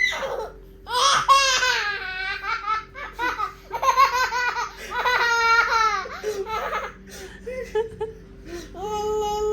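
A small child laughing hard in rapid, high-pitched bursts. Near the end the laughter gives way to a long, rising high squeal.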